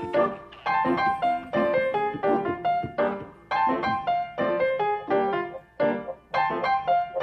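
Background piano music: a running melody of quick struck notes, in phrases with short pauses between them.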